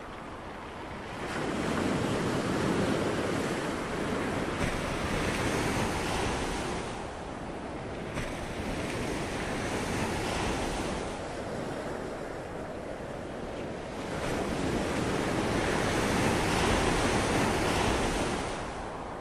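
Ocean waves: a rushing surf noise that swells and fades every few seconds.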